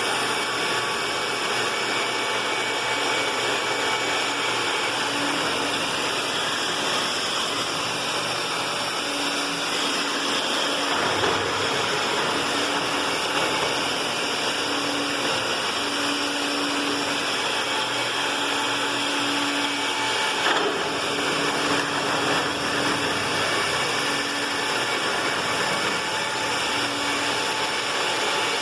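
Electric concrete drill running steadily under load, boring into concrete, with a short knock about 20 seconds in.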